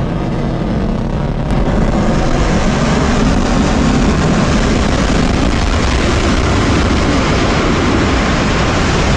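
Steady, loud rumbling noise of SpaceX Starship's Raptor rocket engines firing in the landing burn as the ship descends toward the sea, growing slightly louder about two seconds in.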